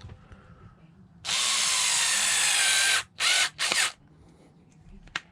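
Small Skil cordless drill driving a thick screw into wood: one run of nearly two seconds with a steady motor whine, then two short bursts as the screw is snugged down.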